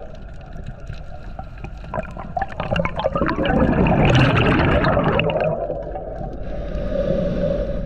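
Scuba diver breathing through a regulator underwater: a loud rush of exhaled bubbles from about three seconds in, lasting about two seconds, between scattered small clicks before it and a steady hum with faint hiss after it.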